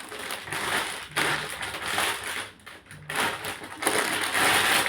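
Packaging crinkling and rustling as a voltage stabilizer is unboxed, in three stretches of a second or two each.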